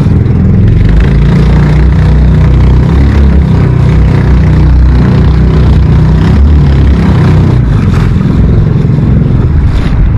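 Small fishing boat's engine running steadily, a loud, low, continuous drone with no change in pace.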